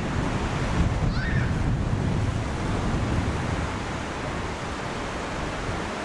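Mediterranean surf breaking and washing up a sandy beach in a continuous rush, with wind buffeting the microphone.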